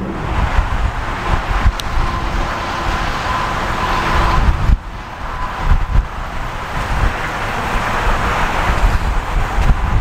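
Road and engine noise inside the cab of a GMC pickup towing a fifth-wheel trailer at about 45 mph. About five seconds in it gives way to gusty wind buffeting the microphone outdoors.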